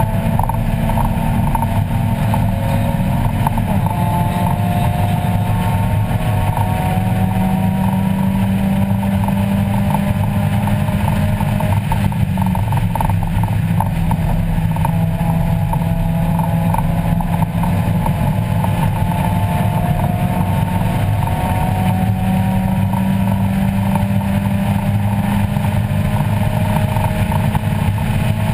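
A 1994 Mazda Miata's 1.8-litre four-cylinder engine run hard on track, heard from inside the cabin over tyre and wind noise. The revs climb slowly and drop back several times as the driver works through the gears.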